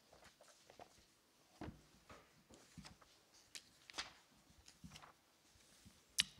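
Faint rustling and soft clicks of Bible pages being handled close to a lectern microphone while the reader finds the passage, with one sharper click near the end.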